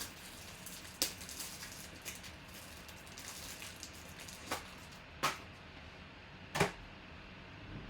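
Trading cards being handled: light rustling with a few sharp snaps and clicks, four of them standing out.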